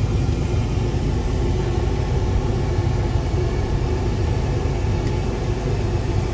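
Steady low engine and road rumble of a car, heard from inside its cabin.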